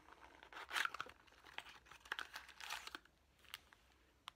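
Small box and clear plastic bag packaging being handled and opened: crinkling, tearing rustles in short bursts, loudest about a second in and again near three seconds, with a sharp click near the end.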